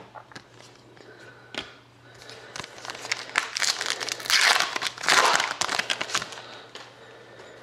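A trading-card pack wrapper being crinkled and torn open by hand. A few light clicks come first, then a dense crackling that is loudest in the middle.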